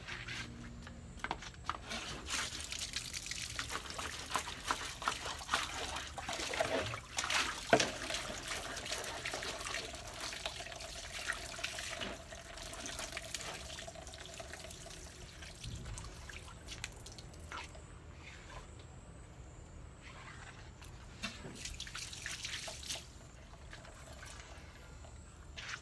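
Water running from a wall tap and garden hose, trickling and splashing onto tiled paving with many small drips and clicks. A faint steady tone sounds for several seconds in the middle, and the water gets quieter near the end.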